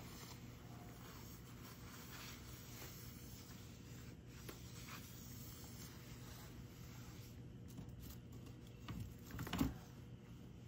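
Cat eating dry kibble from a bowl: faint, irregular crunching and small clicks, with a louder knock about nine seconds in.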